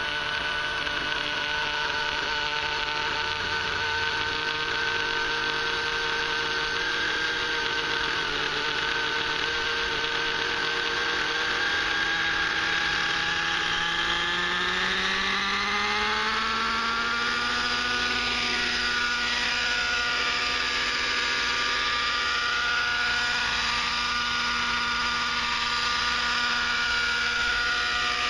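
Align 600 nitro RC helicopter's glow engine running with its rotors turning, smoking. It holds a steady pitch, then from about halfway through the rpm climbs in a smooth rising whine and settles at a higher steady pitch as the head spools up toward lift-off.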